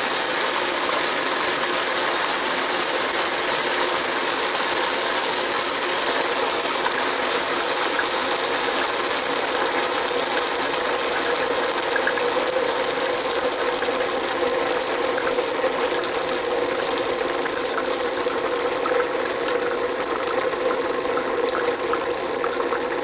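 Water running steadily from a tap at full flow as the household plumbing is drained before flushing the water heater.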